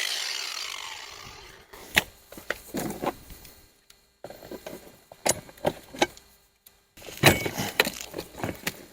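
A Ryobi cordless angle grinder winding down after cutting, its pitch falling as it fades, then scattered sharp metallic clinks and knocks as tools and the hot bolt parts are handled.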